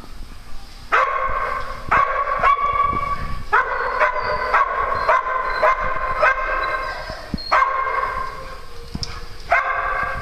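Small dogs barking and yipping in quick, repeated strings, with short pauses between runs.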